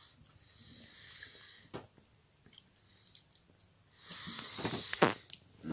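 Faint rustling and handling noise with a few light clicks, growing louder about four seconds in, with one sharp click near the end.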